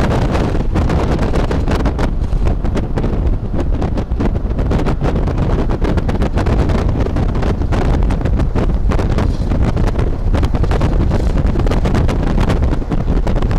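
Wind buffeting the microphone of a camera held in a moving road vehicle, over the steady rumble of the vehicle travelling at speed. The noise is loud and constant, with frequent gusty bursts.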